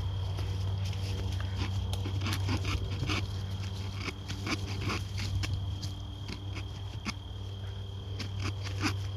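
Irregular clicks and crackles of dry sumac sticks being worked by hand, over a steady low hum.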